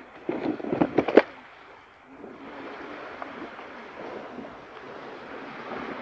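Small waves washing on a sandy beach, a steady soft hiss, after a few sharp clicks in the first second or so.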